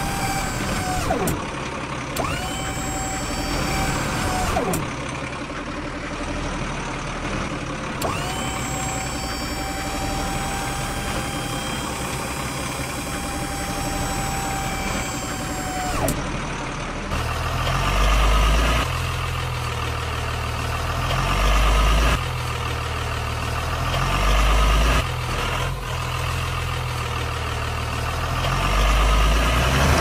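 Heavy vehicle engine sounds, evidently added to the soundtrack since the plastic crane and tractor have no motors. First comes a whining tone that rises, holds steady and falls away, twice, the second time for about eight seconds. From about halfway a deep engine rumble takes over, swelling in loud surges every three to four seconds.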